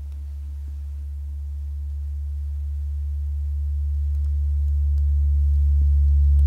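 Paiste Mercury planet gong made to sing by a friction mallet rubbed over its face: one deep, sustained hum that swells steadily louder, with higher overtones joining in towards the end.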